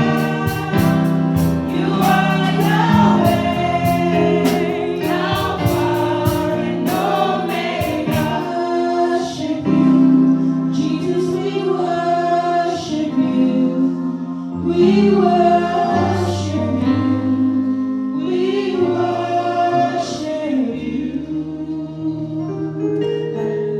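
Gospel worship music: a choir sings with instrumental accompaniment. An even percussion beat runs under it and drops out about eight seconds in, leaving held notes and singing.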